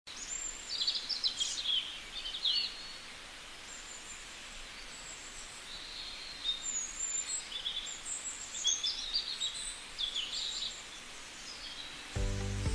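Woodland birdsong: several birds chirping and trilling over a steady hiss of forest ambience. Music comes in near the end.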